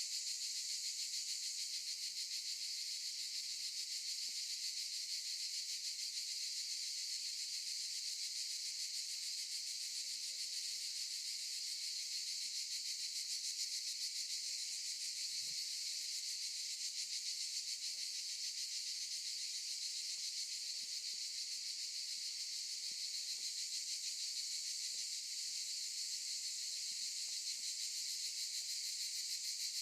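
Cicadas in chorus: a steady, dense, high-pitched buzzing that runs without pause.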